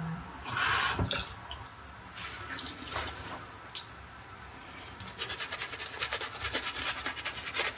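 Water from a tap splashing briefly onto a shaving brush to wet it. From about five seconds in, the brush scrubs lather onto the face in quick, rhythmic strokes.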